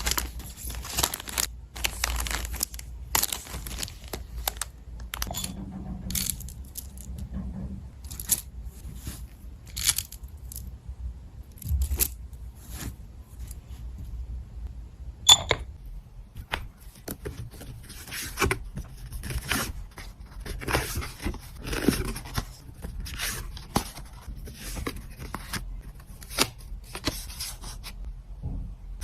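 Hands packing an order: a steady run of short rustles, tears and scrapes of paper and packaging, with one sharp click about fifteen seconds in.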